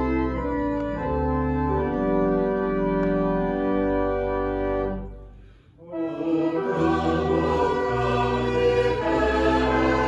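Organ playing slow, sustained chords over long bass notes, fading out about halfway through. After a brief pause, fuller music begins with voices singing over it.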